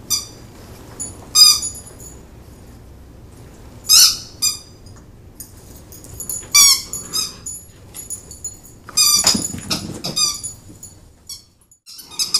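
Italian greyhound whining in short, high-pitched cries, repeated several times with pauses between, with a longer, rougher cry near the end.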